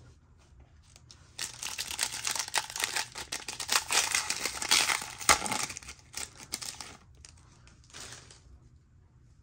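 A foil trading-card pack wrapper being torn open and crinkled for about five seconds, starting a little over a second in, with one more short crinkle near the end.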